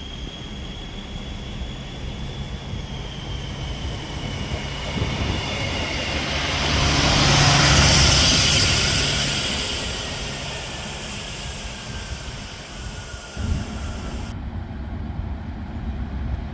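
Koleje Dolnośląskie regional multiple-unit train passing close along the platform. The rush of wheels and body swells to a peak about eight seconds in, then fades, with a high whine that slowly falls in pitch as it goes by. About three seconds before the end the sound changes abruptly to a quieter, steady outdoor background.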